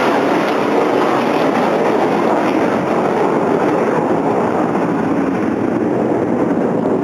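Jet engine roar from Blue Angels F/A-18 Hornets passing overhead: a loud, steady roar that slowly drops in pitch.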